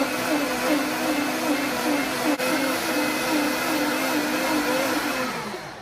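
High-powered countertop blender running at full speed, a steady motor whine over the churn of the jar's contents, then spinning down and stopping near the end. This is the end of a two-minute run that has heated the kale blend until it steams.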